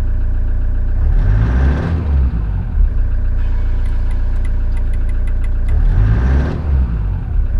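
Toyota HiAce's 3.0-litre 1KD-FTV four-cylinder turbodiesel heard from inside the cab, idling steadily. It is revved briefly twice, about a second in and again about six seconds in, the pitch rising and falling back each time.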